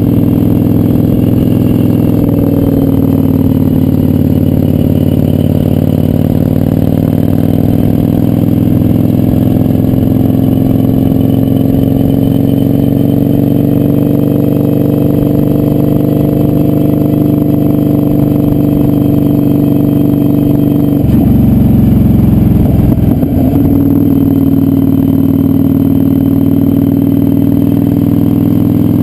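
Kawasaki Vulcan 900's V-twin engine running steadily under way. The engine note shifts briefly about three-quarters of the way through, then settles back to its steady pitch.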